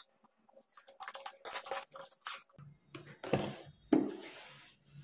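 A paper camera box being opened and handled by hand: short rubbing and scraping of paper and cardboard, with two louder scrapes past the middle as the soft inner case is slid out.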